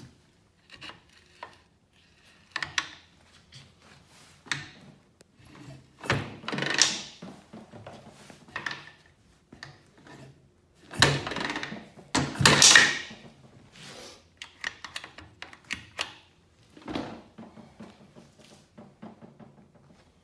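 Thunks and clattering as the kick-start lever of a CZ 125 motorcycle is stamped on several times, the loudest strokes a little past halfway through. The engine does not fire: no running engine is heard.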